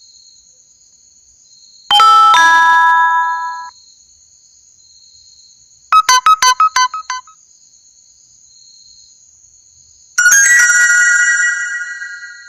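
Three phone text-message notification tones, one after another: a chime about two seconds in that rings on and fades, a quick run of about eight short notes near the middle, and another chime near the end that rings out and fades.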